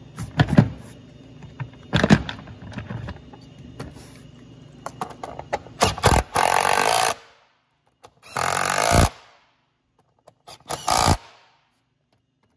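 Cordless impact gun with a socket driving the air filter housing lid screws home in three short bursts, about halfway in, a little later, and near the end. Before them come scattered light clicks and knocks.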